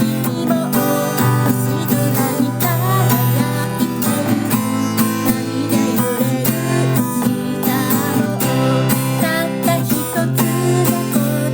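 Acoustic guitar strummed steadily at a slightly slow pop tempo of about 125 beats a minute, with a voice singing over it.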